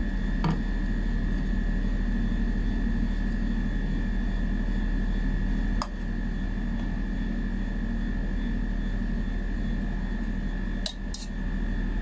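A steady machine hum with a thin high whine, and a few light metal clicks of a teaspoon against a stainless steel milk jug as milk foam is scooped out: one about half a second in, one near six seconds and a quick pair near the end.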